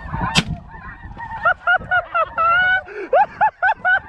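A single shot from a Stevens bolt-action .410 shotgun about half a second in, followed by snow geese honking in a rapid series of repeated calls.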